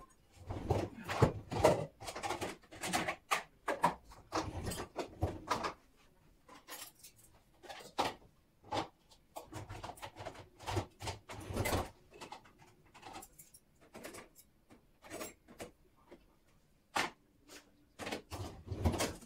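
Dishes, cups and cutlery knocking and clinking as a dishwasher is unloaded: many short clatters in irregular bursts, busiest in the first few seconds, again about halfway through, and near the end.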